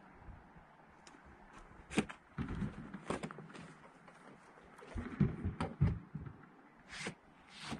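Scattered knocks and thumps, several close together around the middle and a few more near the end, over a faint steady outdoor hiss.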